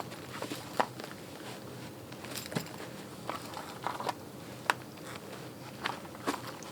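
Scattered knocks, clicks and rustles as a shiny black platform knee-high boot is handled and pulled on, a handful of sharper taps standing out.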